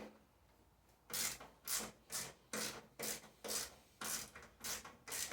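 Hand ratchet wrench worked back and forth to loosen the bolts of the snowblower's drive-components cover, its pawl rasping on each back-swing. The rasping strokes begin about a second in and come about twice a second.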